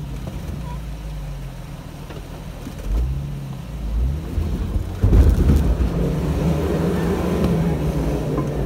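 Jeep Wrangler TJ engine running at low speed while crawling over rocks, heard from inside the cab, with brief swells in the revs and then a jump to higher revs about five seconds in that holds as the engine takes load.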